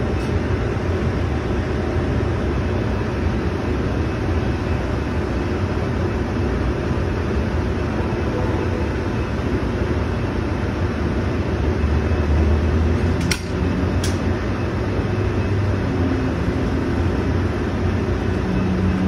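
Amtrak San Joaquin train's bilevel passenger coaches rolling slowly past the platform with a steady rumble and low hum. Two sharp clicks come about a second apart, a little past the middle.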